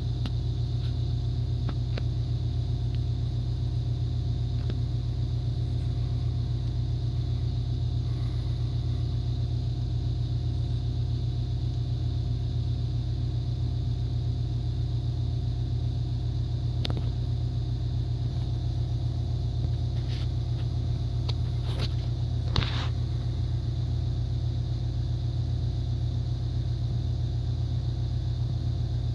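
A steady low hum, with a few short clicks about two-thirds of the way in.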